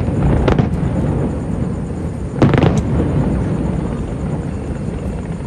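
Aerial fireworks going off: sharp bangs about half a second in and a quick cluster around two and a half seconds in, over a continuous low rumble of bursts and echoes.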